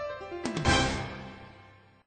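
Theme music over a title card ends on a final hit about half a second in, which then fades away.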